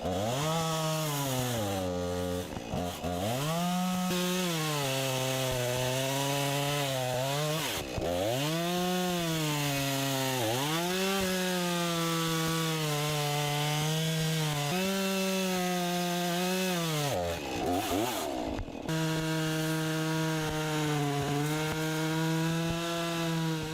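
An engine revving up and down over and over, its pitch dropping sharply and climbing back every few seconds, then holding steady for a while near the end.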